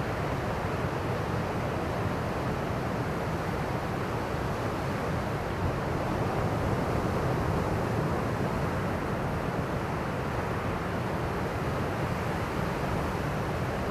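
Ocean surf: a steady rush of breaking waves, swelling slightly about halfway through, on a sea stirred up by swell from Typhoon Doksuri.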